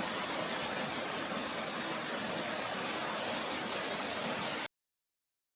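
Steady rushing of a rainforest creek flowing over rocks, cutting off suddenly to silence near the end.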